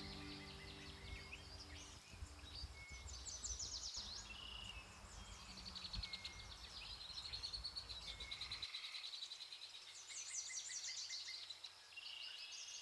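Songbirds singing, with repeated rapid trills and short high whistles; soft background music fades out in the first couple of seconds.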